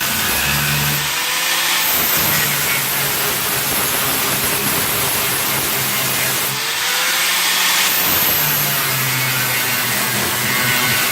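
Angle grinder running steadily against the welded sheet-metal patches, grinding them down, with its pitch dipping now and then under load.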